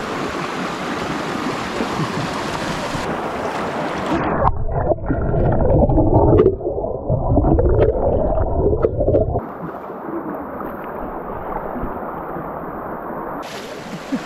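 Shallow, clear river rushing over stones. About four seconds in, the microphone goes under the water: for about five seconds the sound becomes a muffled underwater rumble with gurgling bubbles. It comes back up dull and muffled, and the full rush of the water, with splashing, returns near the end.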